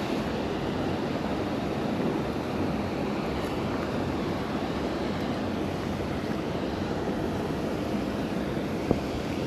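Steady rushing of water pouring over a lake spillway, with one short click near the end.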